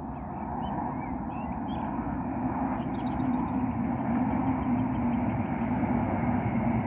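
Renfe AVE Class 100 high-speed electric train running at speed along a viaduct: a steady rushing rumble with a low hum that grows gradually louder as the train approaches. Small birds chirp during the first few seconds.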